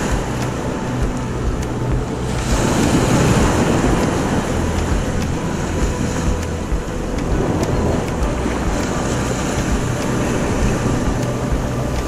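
Surf washing in around the angler's legs, with wind rumbling on the microphone; the wash gets louder about two and a half seconds in.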